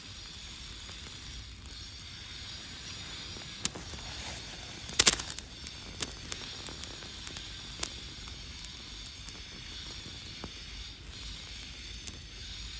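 White phosphorus in a sawn-open 7.62x53 incendiary bullet igniting on its own: a burst of sharp pops about five seconds in, then scattered crackles and snaps as it burns.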